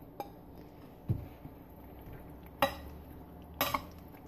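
A metal spoon tapping and scraping against a glass mixing bowl while boiled potato cubes are tipped into a yogurt mixture and stirred: a soft thud about a second in, then two sharp clinks near the end.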